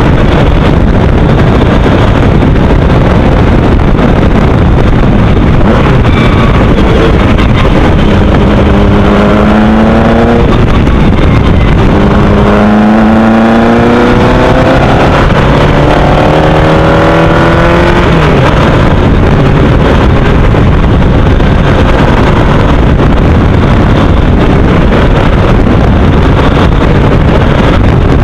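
Formula Easter single-seater race car engine under hard acceleration, heard from the open cockpit through heavy, loud wind and engine noise on the microphone. Twice, from about eight seconds and again from about twelve seconds in, the engine note climbs clearly as the car pulls through a gear.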